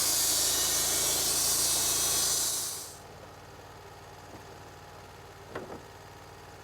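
Wood-Mizer LT-35 portable sawmill cutting a board, a loud steady hiss that fades out over about half a second, two and a half seconds in. A low steady hum follows, with a couple of faint clicks near the end.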